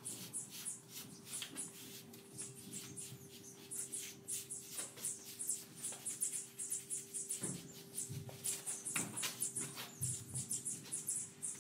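A hand grooming brush worked in quick strokes over a horse's coat and legs, a few strokes a second with short pauses between runs.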